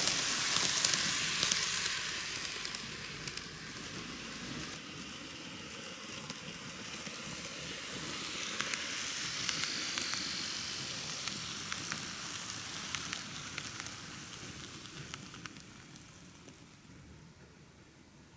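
Microace N-gauge model electric train running along the track: a steady crackling hiss with scattered sharp clicks. It is loudest at first, swells again about halfway through, and fades over the last few seconds.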